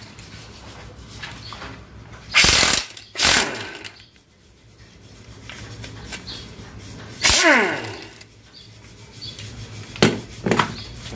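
A power wrench running in short bursts while unbolting fittings from an automatic transmission. There are two bursts about two and a half seconds in, then a longer one past the middle that winds down in pitch as it stops, then two brief ones near the end.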